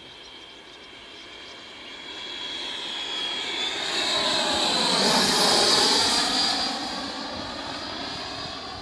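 120 mm Taiwan Tornado electric ducted fan in a Skymaster F-18 RC jet making a fly-by: a high, steady whine with a rushing hiss, growing louder to a peak about five to six seconds in and then fading. Its pitch climbs as the jet nears and drops after it passes.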